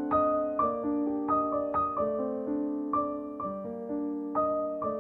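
Background music: a slow solo piano piece, notes struck one or two at a time over sustained lower notes, each left to ring and fade.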